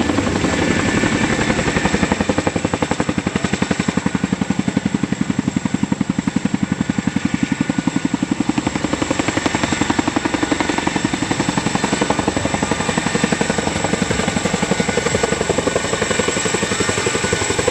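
Boeing CH-47 Chinook tandem-rotor helicopter flying low, its rotors making a rapid, even blade beat with the turbine engines' noise underneath.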